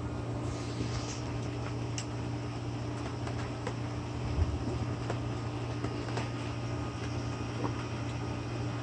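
Steady rain falling, with scattered drops ticking, over a constant low mechanical hum.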